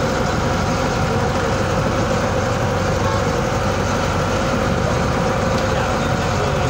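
Engine of a wooden fishing launch running steadily while the boat is underway: a constant drone that holds the same pitch throughout.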